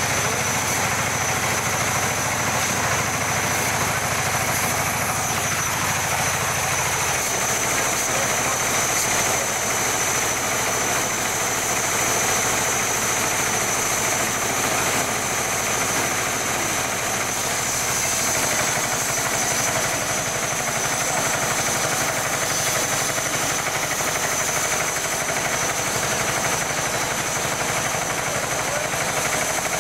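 Small tractor's engine running steadily at constant speed, driving a tractor-mounted band saw that cuts logs into firewood.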